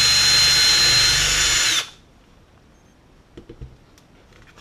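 Ryobi cordless drill with an 11/64-inch bit running at a steady speed with a high whine, boring a hole through a thick cardboard backer board. It stops suddenly about two seconds in, followed by a few faint handling knocks.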